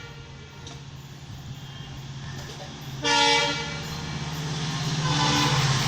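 WDP4D diesel locomotive approaching, its engine rumble growing louder, giving a short multi-tone horn blast about three seconds in and then sounding its horn again, building in loudness, near the end.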